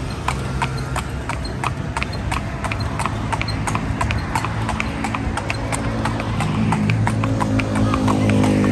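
Hooves of a carriage horse pulling a calèche, clip-clopping on the street in a quick, even rhythm. A low droning hum swells under the hoofbeats in the second half.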